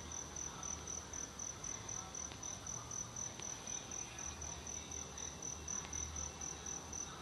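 A cricket chirping steadily in the background: one high, evenly pulsing note, repeating several times a second, over faint low room noise.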